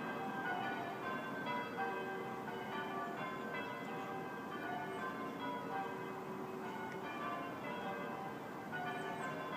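A peal of church bells ringing, several bells of different pitches striking in quick succession, each note ringing on and overlapping the next.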